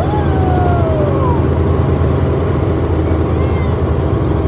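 Helicopter rotor and engine noise heard from inside the cabin: a loud, steady low drone. Near the start a short pitched sound slides downward over about a second.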